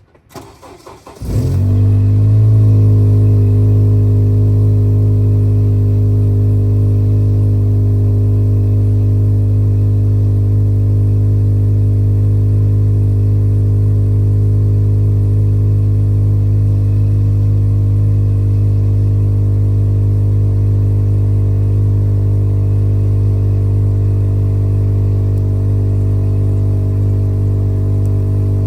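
Acura TSX engine cranking briefly and catching about a second in on a cold start, flaring slightly, then idling steadily.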